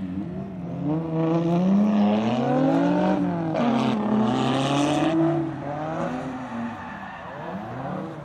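Drift car's engine revving hard, its pitch climbing and dropping several times with throttle blips and shifts. A burst of tyre squeal comes about three and a half seconds in, then the engine note fades back.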